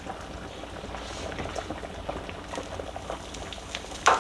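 Chicken in heavy cream bubbling in a skillet on the stove while it is stirred with a spoon, with many small pops and one sharp clink of the spoon against the pan near the end.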